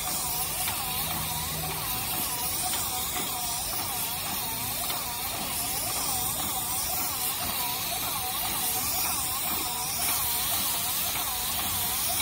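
Airless paint sprayer running at full pressure: a steady hiss of spray with a whine from the pump that wavers in an even rhythm, about two to three times a second.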